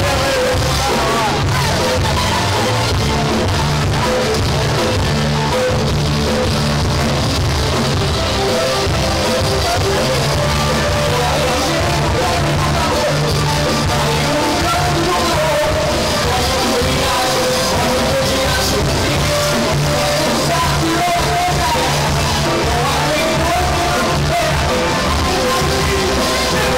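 Loud, steady music with a singing voice, unbroken throughout.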